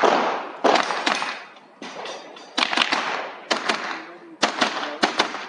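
.22 rimfire rifle firing rapid shots, mostly in quick pairs about a second apart, each sharp crack followed by a short echoing tail.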